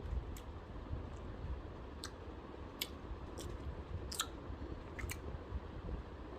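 Close-up chewing of Hubba Bubba bubble gum: a series of short, wet mouth clicks at irregular intervals, over a low steady hum.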